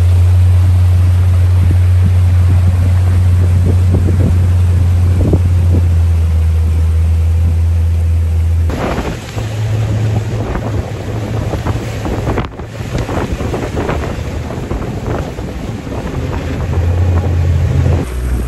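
Boat motor running with a steady low drone as the boat moves across the water. About nine seconds in, the sound changes to wind buffeting the microphone and splashing water over an uneven, lower motor hum.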